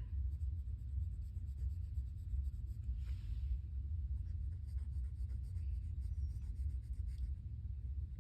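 Pencil scratching on sketchbook paper in many short, quick strokes, filling a small area in solid, over a steady low rumble.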